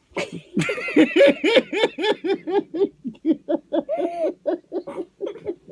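A young child laughing hard in a long, rapid run of high-pitched giggles, about five a second, loudest in the first second and a half.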